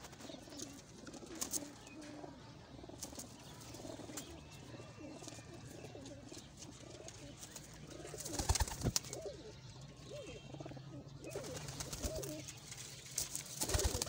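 Domestic pigeons cooing in a loft: a low, continuous murmur of several birds. A brief burst of clattering about eight and a half seconds in is the loudest moment.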